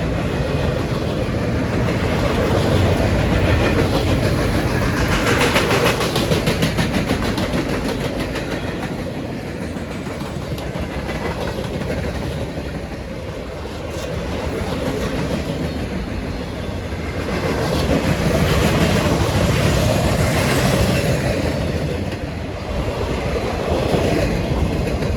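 Maintenance-of-way equipment transport train rolling past on the rails, its wheel noise growing louder and softer in long swells as the cars go by. No horn.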